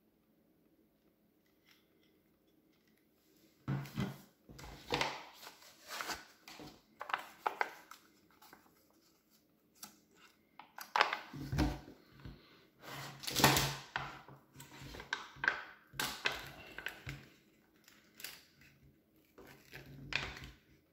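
Military ration packaging being handled and torn open by hand: irregular crinkling and tearing of plastic and foil wrappers, starting a few seconds in, with a few dull knocks among them.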